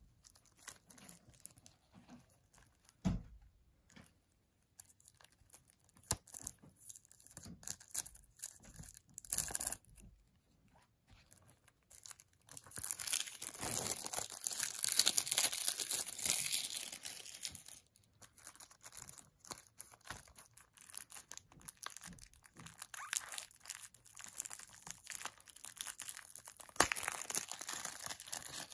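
Plastic shrink wrap being torn and peeled off a Blu-ray case, crinkling in scattered bursts and loudest for several seconds about halfway through. A single soft knock about three seconds in.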